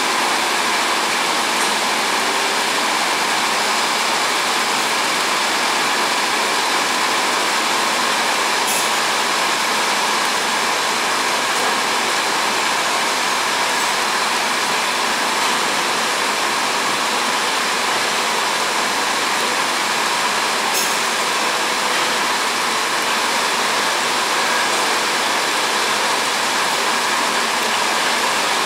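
Roller power feeder's electric motor and rollers running with a steady whirr and a faint hum. Two light clicks come about a third and about three-quarters of the way through.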